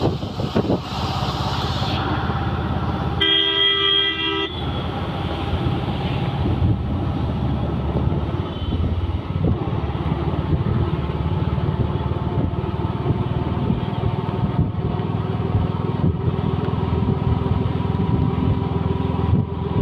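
Road traffic with engines running steadily, and a vehicle horn sounding once, held for over a second, about three seconds in.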